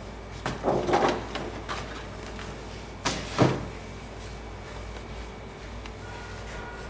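Cardboard shoebox and its lid being handled and moved: a few short knocks and scrapes, then one louder thump about three and a half seconds in.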